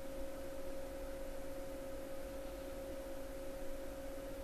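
A steady hum, one clear tone with a few fainter lower ones, over a faint even hiss.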